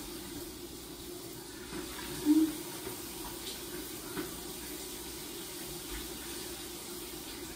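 Shower running behind a glass door: a steady spray of water. A brief, louder low tone sounds about two seconds in.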